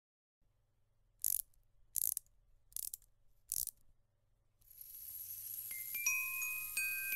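Background music between songs: after a brief silence, four short, evenly spaced hissing strikes, then a melody of short high notes begins about four and a half seconds in.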